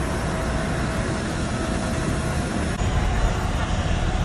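Steady airport apron noise: a wide rushing sound with a heavy, fluctuating low rumble from wind on the microphone. A faint steady whine runs through the first part and stops before the end.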